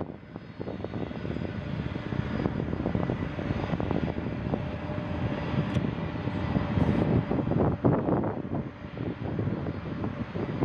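Boeing 747-400F freighter's four turbofan engines at high power during its take-off run: a steady rumbling noise with a faint steady whine, growing slightly louder.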